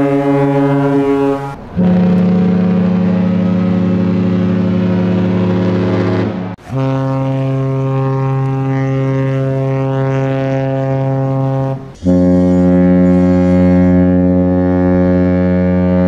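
Hapag-Lloyd ships' horns sounding long, steady blasts one after another. A deep, steady horn chord stops abruptly about a second and a half in. Three more blasts of about five seconds each follow, each cut off sharply where the next begins.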